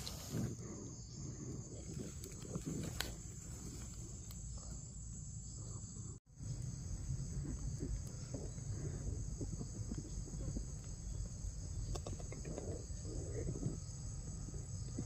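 Steady high-pitched insect chorus, with faint low rustles and scrapes beneath it; the sound drops out briefly about six seconds in.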